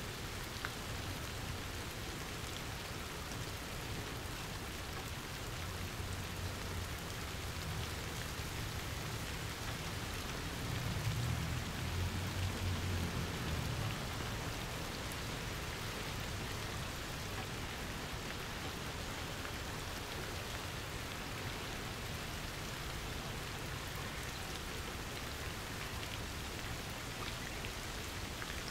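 Steady rain falling. A low rumble swells through the middle and fades away a few seconds later.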